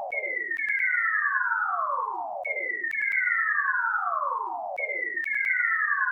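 Synthesized falling-whistle sound effect, played three times about two and a half seconds apart. Each is a clean, doubled tone that slides from high to low over about two seconds, with light clicks near its start.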